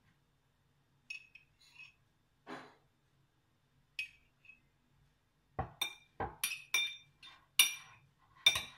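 A metal teaspoon clinking against drinking glasses as spoonfuls of coffee are dribbled over crumbled cake. There are a few light taps at first, then a quick run of sharp, ringing clinks over the last three seconds.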